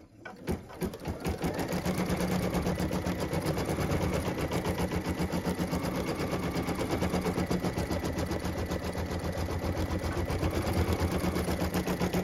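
Brother Dreamweaver embroidery machine stitching an outline onto hooped stabilizer. A few separate clicks as it starts, then a fast, even stitching rhythm that holds steady from about a second in.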